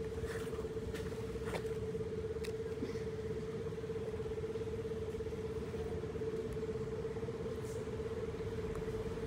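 A steady machine-like hum held at one pitch over a low rumble, with a few light clicks in the first few seconds.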